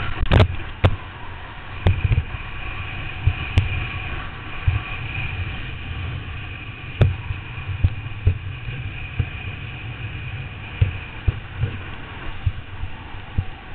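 Wind buffeting the microphone of a helmet-mounted camera on a kneeboarder towed at speed behind a boat, a steady low rumble broken by irregular thumps, with the hiss of the board cutting through the water and wake.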